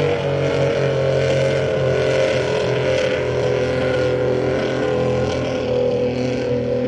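Outboard motor of a tunnel-hull race boat running hard at speed. Its high, steady engine note dips slightly in pitch partway through and climbs back near the end.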